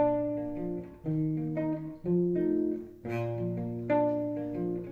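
Acoustic guitar with a capo played solo as a song intro: bass notes and chords ringing and fading, in a phrase that repeats about every two seconds.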